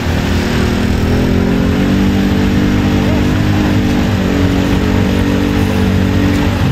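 ATV engine revving hard and held at high revs as the quad ploughs slowly through deep mud, the pitch rising over the first couple of seconds, holding, and dropping off at the very end.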